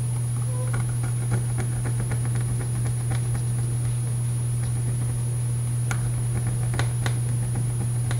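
Light clicks and taps of small hand tools on a harmonica's reed plate during reed-slot embossing, scattered through the first few seconds and again around six to seven seconds in, over a steady low hum.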